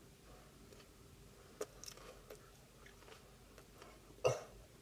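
A person chewing a mouthful of raw chilli pepper: faint, scattered wet mouth clicks, with one short louder mouth sound near the end.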